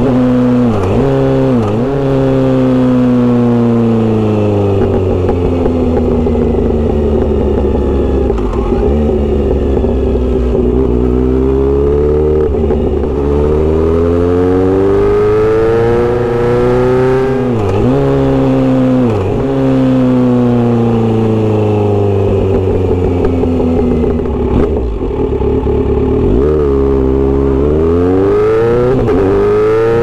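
Kawasaki Z900RS inline-four through a Misty Kintaro short-pipe aftermarket muffler, heard from the rider's seat while riding. The exhaust note climbs as the bike accelerates and drops sharply at each upshift, with quick pairs of shifts about a second in, around 18 seconds and again near the end. Between them come long stretches where the note falls as the bike slows.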